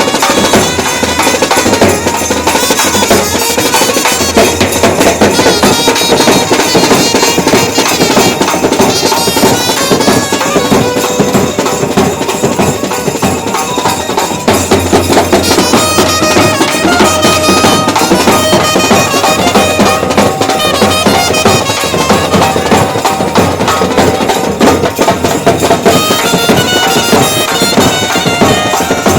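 Sanai-chaughada ensemble playing: a shehnai carries a wavering reedy melody over the beat of chaughada drums.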